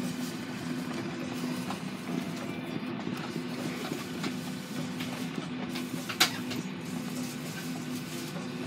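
Steady engine hum and rumble from a vehicle moving across an airport apron, with one sharp click about six seconds in.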